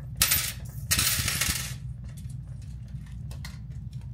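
Coins clinking and rattling on a glass display counter in two bursts, the second longer, in the first couple of seconds, then a few light clicks, over a low steady hum.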